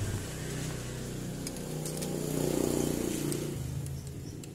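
A passing motor vehicle's engine hum, growing to its loudest about two and a half seconds in and then fading away, with a few faint metal clicks of a spanner working on the valve adjuster lock nut.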